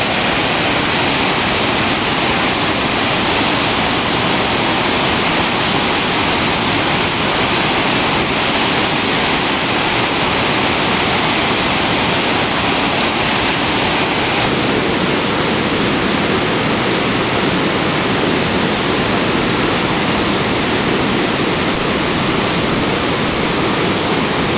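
Spokane River rapids running near flood stage: a steady, loud rush of whitewater. The hiss turns a little duller about halfway through.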